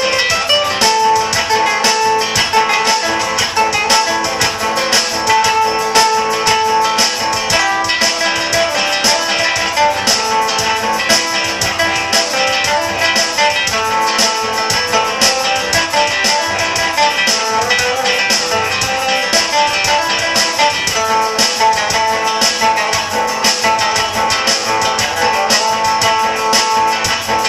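Music on plucked string instruments, guitar among them: fast, even strumming with a melody over it, played without a break.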